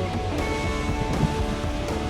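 Background instrumental music with held, plucked-string tones.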